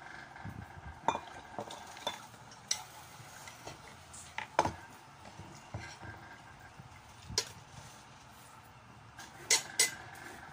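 Cutlery clinking and scraping against a plate in scattered sharp taps, the loudest a quick pair near the end.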